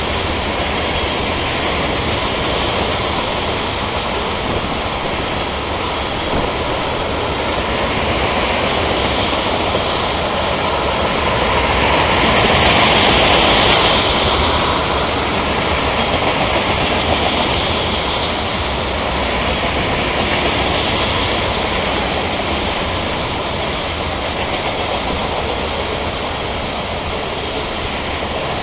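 Freight train of loaded ethanol tank cars rolling past, a steady rumble and rattle of steel wheels on rail. About halfway through the wheel noise swells louder and higher for a couple of seconds.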